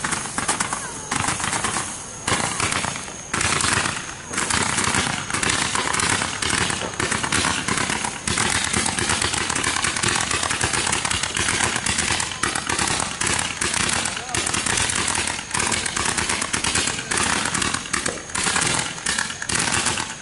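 Fireworks crackling: a dense, rapid run of sharp pops that starts in short spurts and then keeps going almost without a break.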